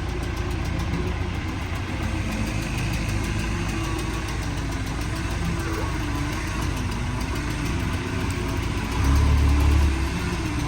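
An engine idling steadily, its pitch wavering slightly. About nine seconds in it rises to a louder, deeper rumble for about a second.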